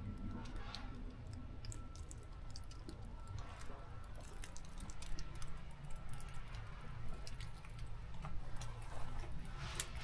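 Forest ambience: scattered faint ticks over a low steady rumble, with a faint steady high tone and a brief rustling hiss near the end.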